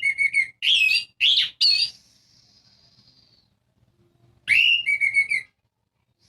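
Orange-headed thrush singing: a run of loud whistled and rattling song phrases in the first two seconds, then after a pause a shorter phrase, a rising whistle into a quick series of notes, about four and a half seconds in. A faint, thin, high note carries on between the phrases.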